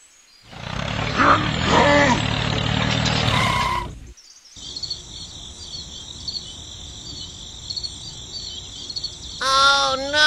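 A low rumbling noise for about three and a half seconds, then birdsong with repeated high chirps over a faint background. Near the end comes a loud pitched sound about a second long, its pitch wavering.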